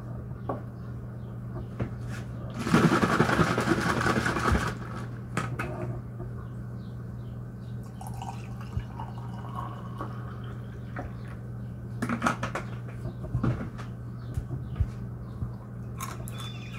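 Orange juice being poured into a glass tumbler, loudest for about two seconds near the start. Scattered light clicks and knocks follow, over a steady low hum.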